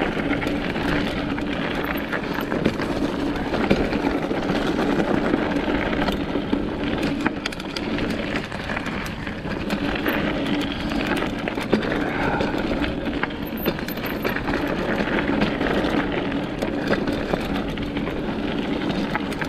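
Mountain bike rolling down a rough dirt singletrack: steady rolling noise from the tyres and riding, with frequent clicks and rattles from the bike going over the bumps.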